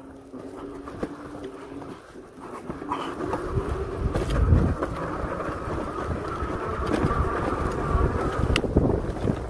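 Electric hub motors of a two-wheel-drive fat-tire e-bike whining under way: a steady whine that drops out briefly about two seconds in, then comes back rising in pitch as the bike picks up speed, over a low rumble of wind on the microphone.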